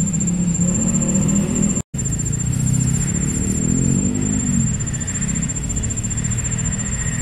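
A motor vehicle engine running nearby, its pitch rising and then falling in the middle, under a steady thin high-pitched whine. The sound cuts out for an instant about two seconds in.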